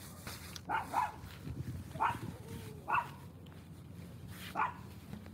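A dog barking: five short barks at uneven intervals, over a faint steady hum.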